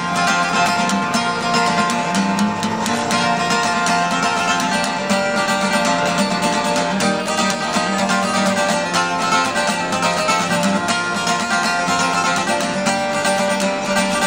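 Acoustic guitar music played steadily with dense plucking.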